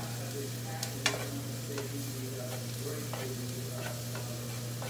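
Garlic frying with a steady sizzle in a nonstick pan while it is stirred, the utensil scraping and tapping against the pan several times, with a sharper knock about a second in. The garlic is being browned.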